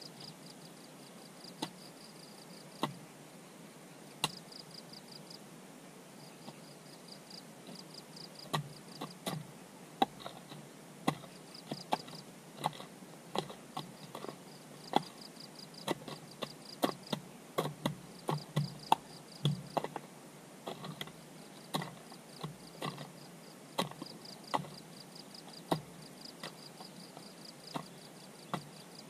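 Insects chirping in short, high-pitched pulsed trains, over irregular sharp knocks of hand-tool work that come more often from about eight seconds in.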